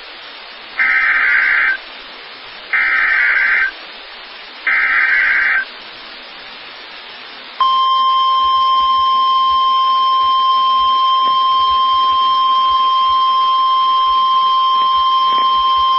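NOAA Weather Radio Emergency Alert System signal: three one-second bursts of SAME digital header data about two seconds apart, then, about eight seconds in, the steady single-pitch 1050 Hz warning alarm tone. Together they mark the start of a new tornado warning broadcast.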